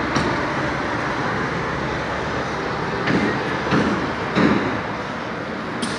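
Steady outdoor city traffic noise, with a few brief louder sounds about three to four and a half seconds in.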